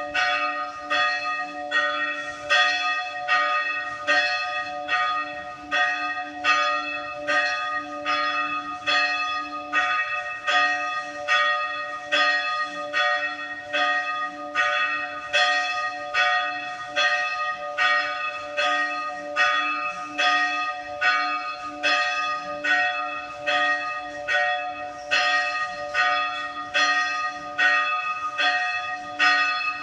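Church bell rung in a steady, even rhythm, about one and a half strokes a second, each stroke ringing on into the next with a lasting low hum beneath.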